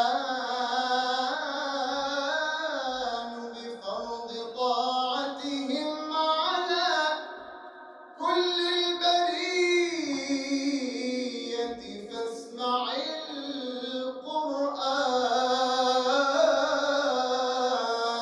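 A man singing a devotional praise song solo, in long, ornamented held notes that wind up and down in pitch, with a short break for breath about eight seconds in.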